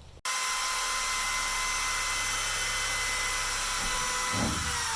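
Power tool motor starting abruptly and running at a steady high-speed whine, its pitch beginning to fall near the end as it slows or takes load.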